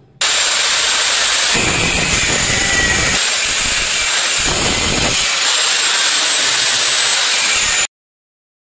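Handheld electric angle grinder with a stone-cutting disc, running at a high whine and cutting into a black granite strip. The sound grows coarser twice as the disc bites into the stone, then cuts off suddenly near the end.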